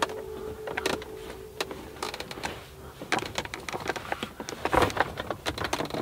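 Plastic trim tool prying at a BMW E46's plastic shifter trim panel: scattered clicks and small snaps of plastic, coming thicker in the second half.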